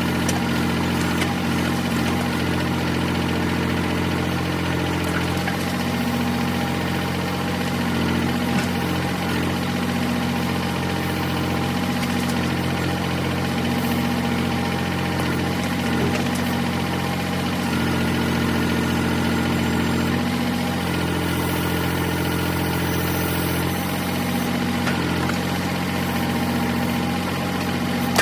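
Engine running steadily at idle, its note wavering slightly every couple of seconds.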